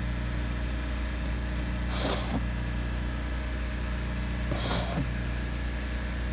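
A freshly sharpened chef's knife cutting through cardboard twice, each cut a short hiss, the two about two and a half seconds apart, over a steady low motor hum.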